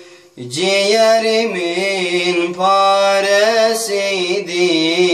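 A man singing a long, drawn-out, wavering melismatic phrase of a Turkish folk lament, starting after a brief pause.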